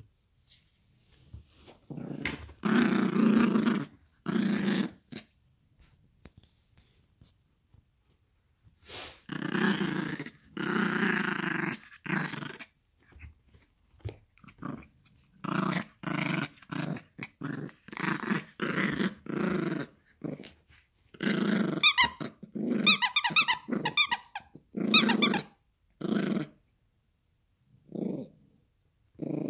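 Yorkshire terrier play-growling in repeated bouts while tugging at a plush toy. The bouts grow shorter and come closer together in the second half, with some high squeaks among them about three quarters of the way through.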